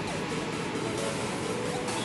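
Background music over a steady hiss.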